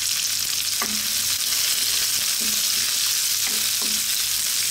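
Sliced red onion and garlic sizzling steadily in hot oil in a wok, with a spatula scraping and tapping against the pan about five times as they are stirred.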